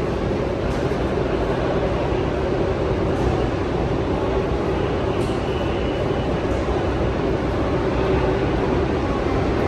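Steady rumbling din of a subway station, a low noise with a hum under it that holds even throughout.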